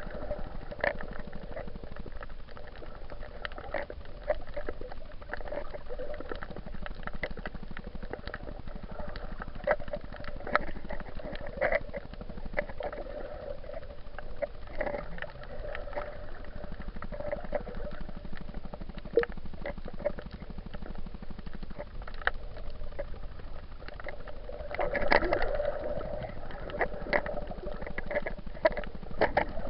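Muffled underwater sound picked up through an action camera's waterproof housing while snorkeling: steady water noise with many irregular small clicks and a few swells of bubbling, the loudest near the end.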